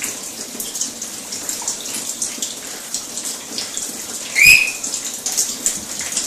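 Shower spray hissing steadily with droplets spattering on a rainbow lorikeet and its perch. About four and a half seconds in, one short, loud, shrill call from the lorikeet.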